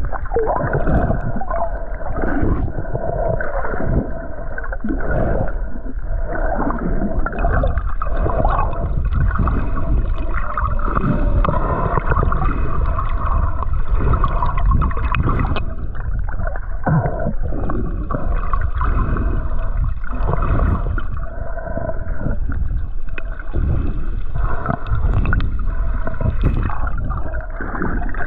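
Muffled water gurgling and sloshing heard underwater while snorkelling, continuous with uneven surges.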